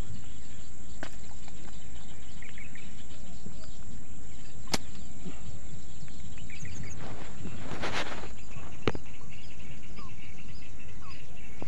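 Steady outdoor background noise with a strong low rumble, broken by a few sharp clicks and a short rustle about eight seconds in, with faint bird chirps now and then.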